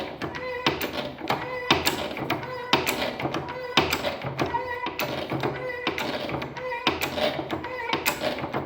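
Hand-operated pressure-test pump being pumped steadily to pressurise a heating system. Each stroke of the lever gives a knock and a squeak, about once a second.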